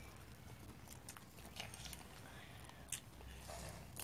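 Faint, scattered crunches and clicks of potato crisps, with a sharper click about three seconds in.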